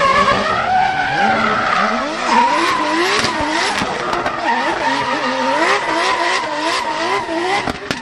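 Race car drifting: the engine revs rise and fall over and over with the throttle while the rear tyres squeal and skid continuously as they spin up smoke.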